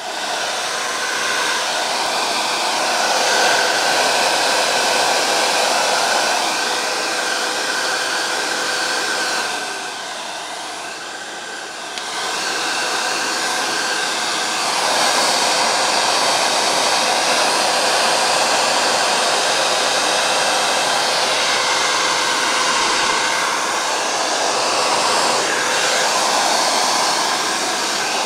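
UNIX UN-1330NA hair dryer switching on abruptly and blowing: a steady rush of air with a faint motor whine. About ten seconds in it drops quieter for two seconds, then comes back up to full strength.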